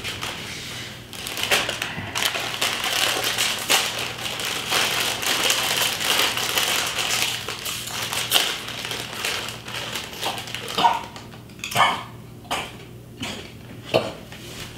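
Chips crunching and a plastic chip bag crinkling: a dense run of small crackles for most of the time, then a few separate louder crunches near the end.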